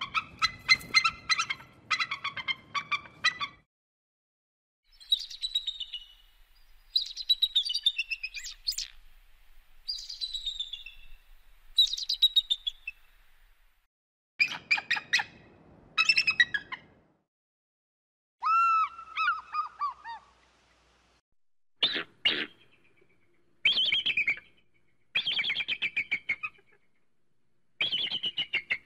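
Eagle calls in separate bouts with short silences between: quick runs of high, piping notes, and calls that fall in pitch.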